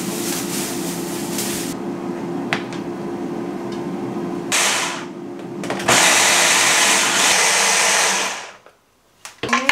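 Philips hand-held stick blender pureeing tomatoes in its beaker: a short burst about four and a half seconds in, then a loud, steady run of about two seconds that stops abruptly near the end.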